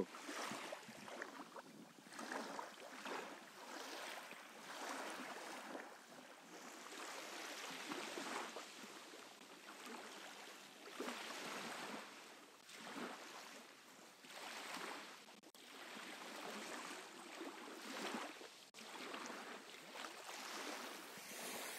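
Small waves washing onto a sandy beach: a faint hiss that swells and fades every second or two.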